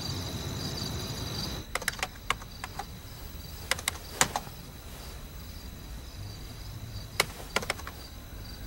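Crickets chirping in a steady high pulse, dropping away about two seconds in, then sharp clicks at a computer: a quick cluster about two seconds in, a few more around four seconds, and another run near the end.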